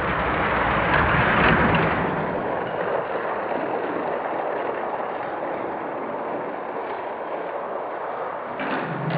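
Die-cast 1/64 toy cars rolling down an orange plastic Hot Wheels track, a steady rolling rumble that is loudest about a second or two in.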